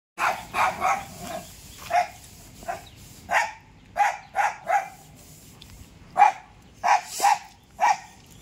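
A small black-and-white dog barking repeatedly: short barks, often two or three in quick succession, with pauses of up to a second or so between runs.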